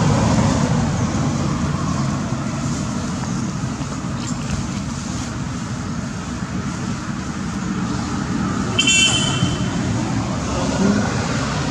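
Steady rumble of road traffic, with a brief shrill high-pitched sound about nine seconds in.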